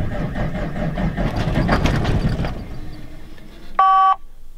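Starter cranking the 1990 Peterbilt's Cat diesel engine on its first start attempt after sitting all winter, a pulsing rumble for about two and a half seconds that then eases off. Near the end comes a short, loud warning beep.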